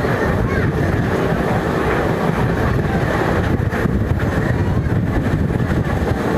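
Steady, loud engine rumble from heavy track-construction machinery, with wind buffeting the microphone.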